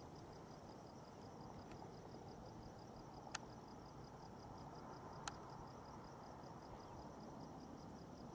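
Quiet night ambience: crickets chirping in an even pulse over a low hiss, with two sharp clicks about two seconds apart.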